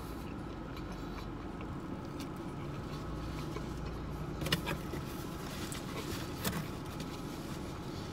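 Steady low hum inside a car, with a few faint clicks and rustles of someone eating about halfway through.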